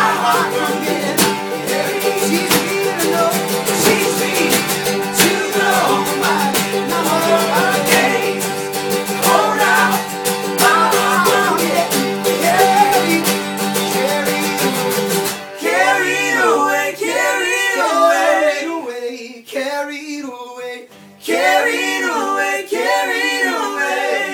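Live acoustic folk band: two acoustic guitars and a small banjo strummed hard under singing voices. About fifteen seconds in, the instruments stop and the voices carry on singing in harmony, unaccompanied, with short pauses between phrases.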